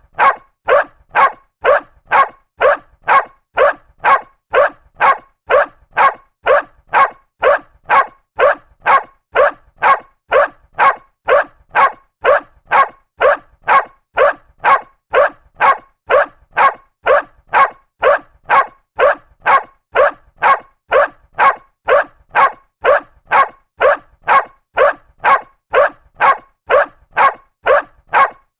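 Dog barking in a steady, even rhythm, about two barks a second, each bark short and alike.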